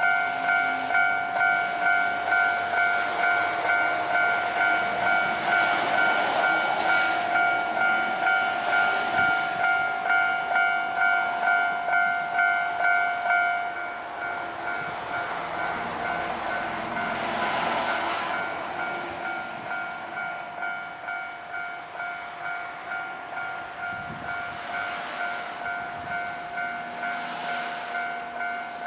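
Japanese level-crossing alarm ringing its electronic "kan-kan" bell about twice a second while an Ohmi Railway electric train runs through the crossing. The train's running noise builds and peaks about 17 seconds in. About 14 seconds in, the alarm's lower tone drops out and the bell goes on quieter, with the lower tone coming back near the end.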